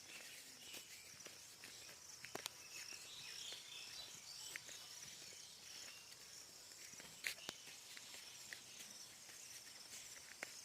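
Faint outdoor nature ambience: soft, high chirping of small animals, with a few scattered light clicks.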